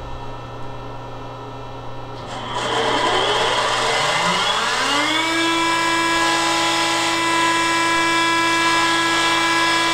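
Landis universal cylindrical grinder's grinding-wheel spindle starting up: a low hum, then about two seconds in a whine that rises in pitch for about three seconds and settles into a steady high running tone as the wheel comes up to speed.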